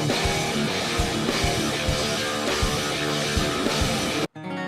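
Rock music with drums and guitar, its beat marked by steady kick-drum thumps, cut off abruptly near the end. It is followed by a single guitar chord that rings on and slowly fades.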